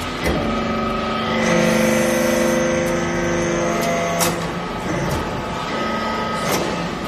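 Hydraulic metal-chip briquetting press compressing swarf. Its hydraulic drive runs with a steady whine that grows louder about a second and a half in, then drops back after a sharp click about four seconds in, with another knock near the end.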